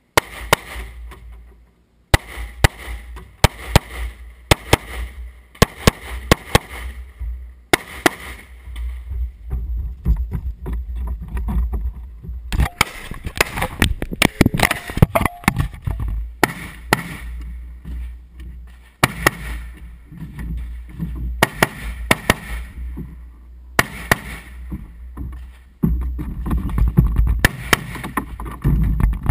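A series of rifle shots fired during a practical shooting stage, often in quick pairs, with a steady low wind rumble on the microphone between them.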